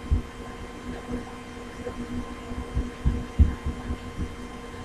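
Handling noise while a screw is tightened on a toy helicopter: a few soft, irregular low thuds and knocks over a steady faint hum.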